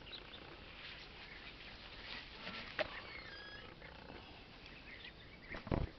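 Quiet outdoor yard ambience: scattered light steps and rustles with a few faint, short bird chirps, and a louder scuff about half a second before the end.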